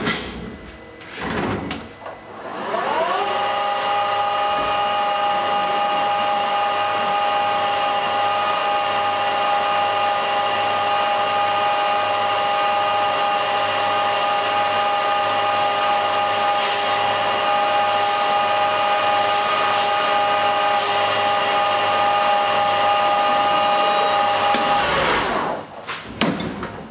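Knocks and clicks of the lathe's quick-change toolpost being handled, then the CNC lathe's spindle spins up with a rising whine, runs at a steady pitch for about twenty seconds and spins down again near the end, with a few more clicks.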